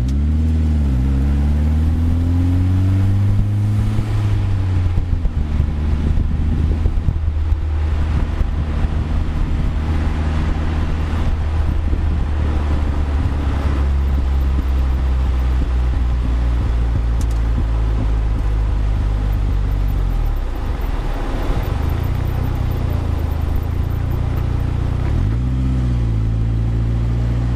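Westfield SEiW sports car engine running under way. Its pitch dips and climbs near the start and again near the end and falls away about two-thirds through, with an irregular patch of knocks and rattles between about five and twelve seconds in.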